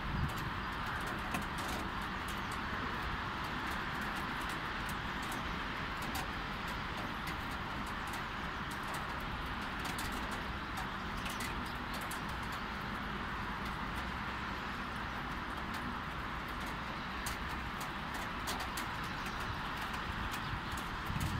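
Light rain: a steady hiss with many scattered drops ticking close by, over a low hum of city traffic.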